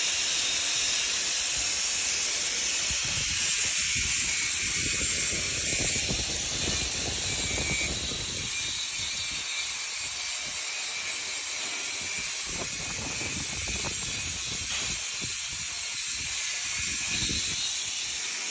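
Electric arc welding on steel angle bar: a steady hiss from the arc, a little quieter in the second half.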